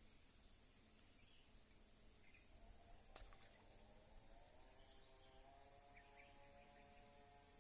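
Faint, steady, high-pitched insect drone, with a couple of soft clicks about three seconds in and a faint low hum joining about midway.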